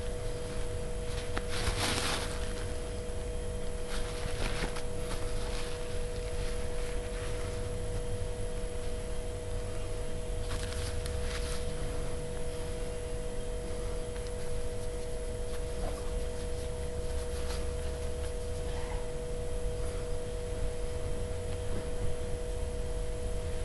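A steady two-note hum, like an electrical whine, runs throughout over a low rumble. Faint brief rustles come now and then.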